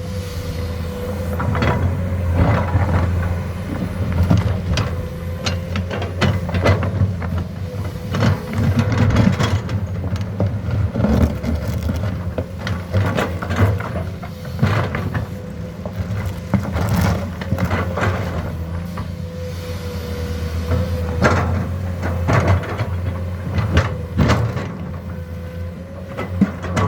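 Komatsu excavator's diesel engine running steadily with a constant whine, and frequent clanks and knocks as it digs and loads a dump truck.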